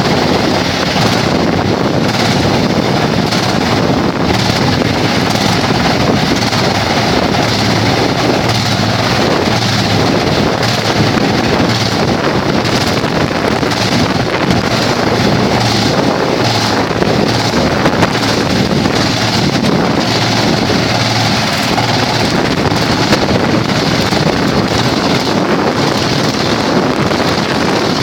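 Vantec PTF600 forestry wood chipper running: a loud, steady machine noise that holds level throughout.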